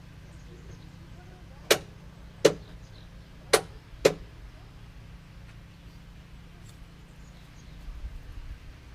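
Four sharp knocks, the last two about half a second apart, with a brief low rumble near the end.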